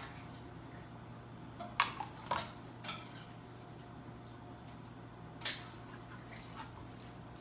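Metal spoon clicking and scraping against a plastic yogurt cup: three quick clicks about two to three seconds in, and one more about five and a half seconds in.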